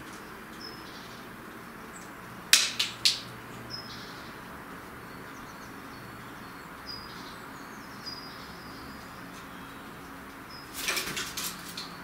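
Feral pigeon on a wooden bird feeder: three sharp knocks about two and a half seconds in as it pecks at the feeder, then a short flurry of wing flaps near the end as it shifts its perch. Faint chirps of small birds sound in the background.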